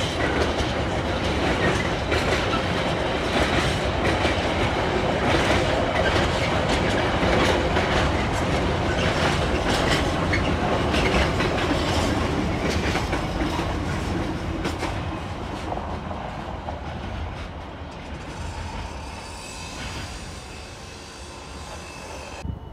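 Container freight train passing close by, its wagon wheels clattering over rail joints in a run of rapid clicks. The sound fades away over the last several seconds as the train draws off.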